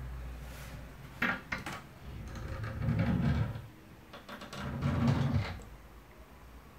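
A wooden cabin door on a sailboat clicking at its latch a few times, then two longer rubbing, knocking sounds as it is swung open into the head compartment.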